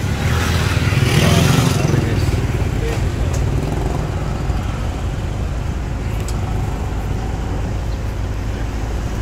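Street traffic with motorcycle engines passing, loudest in the first two seconds and then a steady rumble, with a few voices mixed in.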